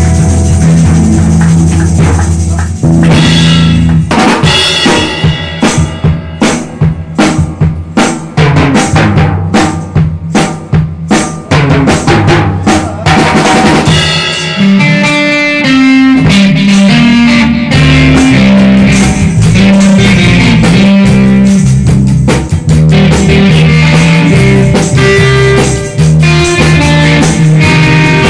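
Small live band with drum kit, electric bass and amplified electric guitar playing together. From about three seconds in the drums hit a run of sharp, separated strokes, and from about fourteen seconds a guitar melody rides over the bass and drums.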